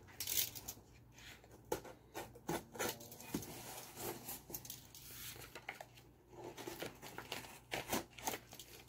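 Packing tape on a cardboard box being slit and scraped open, in short scratchy cuts and taps against the cardboard, with light paper rustling.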